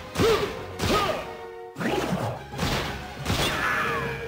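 Film sound effects over music: about five sharp bangs and whacks, several trailed by quick sliding, whistle-like tones.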